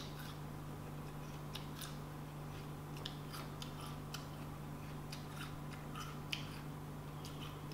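A person chewing a bite of wax apple, a crisp, watery fruit: faint, irregular crunching clicks, a few each second, over a steady low hum.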